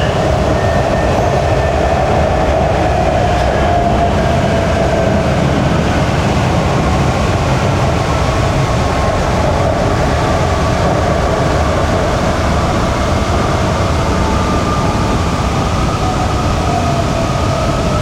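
Shenzhen Metro Line 14 train running: a steady rumble with a faint whine of a few tones that drift slowly in pitch.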